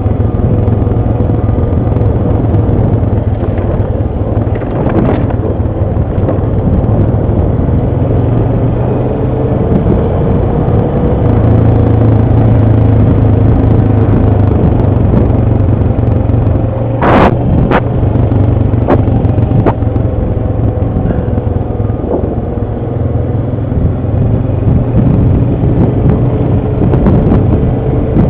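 ATV engine running steadily under way, heard close up. A sharp knock partway through, followed by a few smaller clicks.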